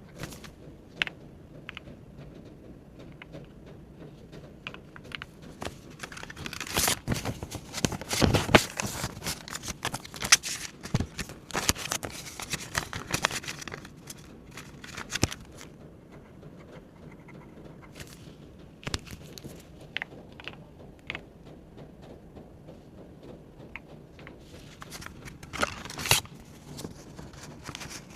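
Paper money being handled: banknotes and paper crinkling and rustling, with small taps and clicks, busiest from about six to sixteen seconds in and again briefly near the end.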